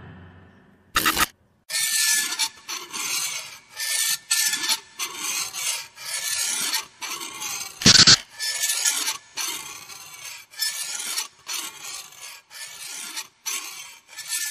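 Rasping, scraping noise in repeated short strokes with brief gaps, one much louder stroke about eight seconds in.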